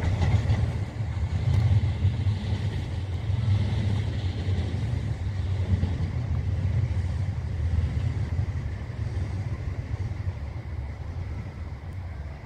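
A JR train bound for Kagoshima-Chuo, a diesel railcar on the Ibusuki-Makurazaki Line, running past with a steady low rumble that slowly fades as it draws away.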